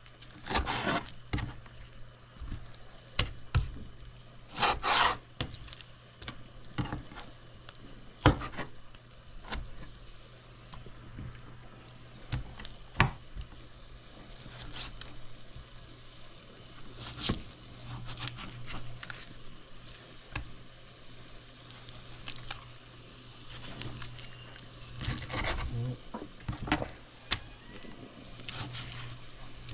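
A kitchen knife cutting and scraping fat and skin off raw chicken thighs: irregular scrapes with scattered knocks and clatters.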